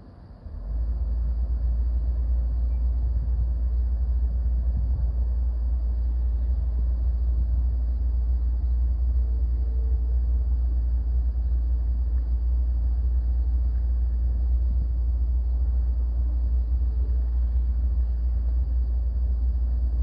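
Wind rumbling on the microphone outdoors: a loud, steady, low rumble that comes in suddenly about half a second in.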